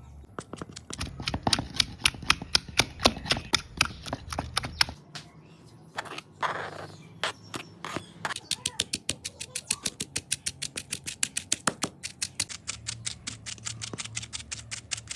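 A knife chopping on a cutting board. The first strokes are uneven and loud, there is a short scrape in the middle, and then comes a fast steady run of about five chops a second.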